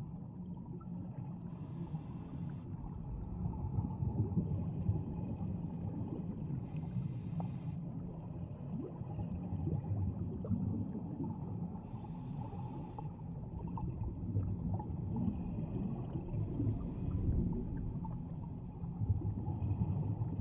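Scuba diver breathing through a regulator, heard underwater: a steady low rumble with a burst of bubbling hiss from exhaled air about every five seconds.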